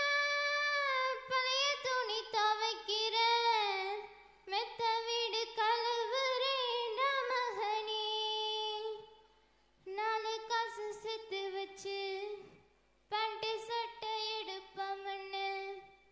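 A girl singing a Tamil folk song solo into a microphone, with no instruments heard. She sings long phrases with sliding, ornamented pitch, broken by three short pauses for breath.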